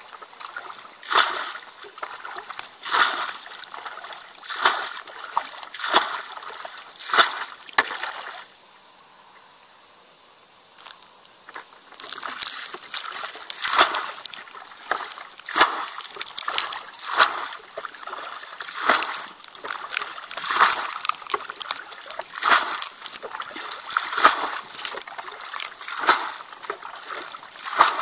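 Plastic bucket bailing muddy water from a shallow pool: a scoop and a splash of thrown water about every one and a half to two seconds, pausing for a few seconds about a third of the way in.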